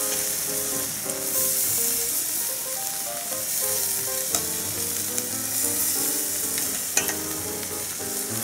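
Barbecue-sauced chicken wings sizzling on the grate of a charcoal kettle grill over hot coals: a steady hiss, with one sharp click about seven seconds in.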